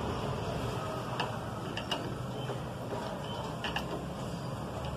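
A socket wrench turning the spring bolts of a Honda Unicorn's clutch pressure plate by hand, giving a few faint metallic clicks over steady background noise.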